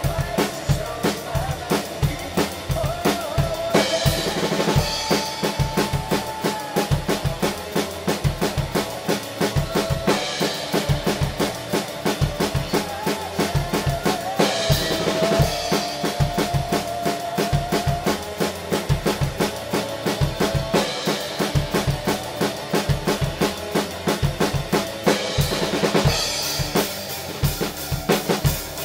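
Acoustic drum kit played as a rock drum cover, with a driving kick-and-snare beat and fills over the recorded song. Crash cymbal accents come every few seconds.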